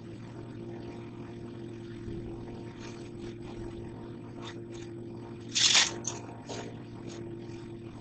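An engine running steadily with an even hum, with a short, loud noise about five and a half seconds in.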